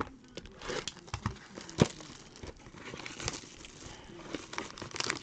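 Handling of trading-card packaging: irregular rustling and crinkling with scattered sharp clicks and taps, the loudest click a little under two seconds in.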